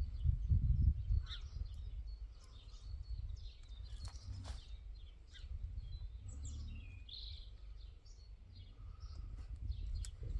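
Small birds chirping and calling in short, scattered notes, over a low rumbling noise that is loudest in the first second.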